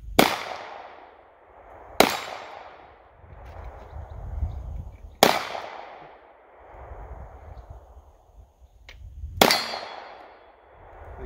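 Four shots from a Taurus 905 snub-nosed 9mm revolver, fired at uneven intervals about two, three and four seconds apart, each followed by a long fading echo.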